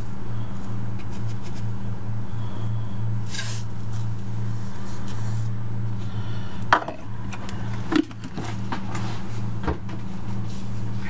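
Steady low hum, with dry bread crumbs being scooped and poured from a plastic measuring cup: a short rustle, then a few light knocks as the cup is tapped against the bowl and set down on the counter.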